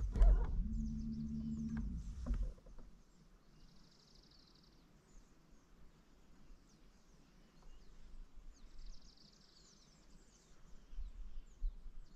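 Bow-mounted electric trolling motor humming steadily for about two seconds, then cutting off. Faint birdsong continues after it.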